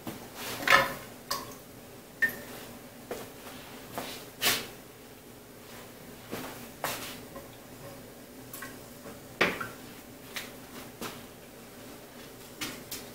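Hot glass canning jars being lifted out of a pressure canner with a jar lifter and set down on a towel-covered counter: scattered knocks and light clinks, a few seconds apart, over a faint steady hum.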